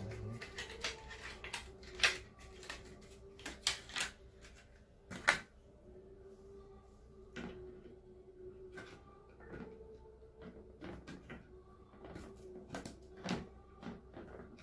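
Scattered plastic clicks and knocks as a DDR3 RAM module is handled and pressed into a motherboard's memory slot, the sharpest about 2 and 5 seconds in, over a faint steady hum.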